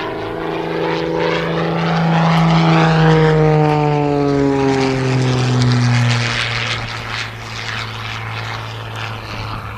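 Single-engine propeller airplane flying a low pass: its engine drone grows louder, then drops in pitch as it goes by and carries on steadily a little quieter.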